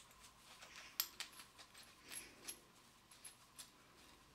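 Faint small metallic clicks and ticks as the steel parts of a hinge self-centring drill bit are screwed back together by hand.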